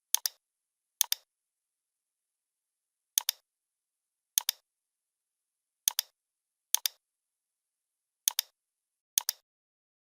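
Computer mouse clicks: eight clicks spaced about a second apart, each a quick double snap of the button going down and coming back up, with dead silence between them.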